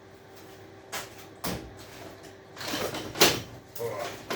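Knocks and short clatters of scrap appliances and wire being handled and moved about, with a few separate hits and the loudest clatter about three seconds in.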